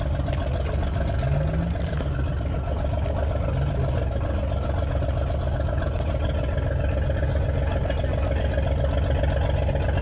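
Military armoured car engine running steadily while driving, a continuous low rumble.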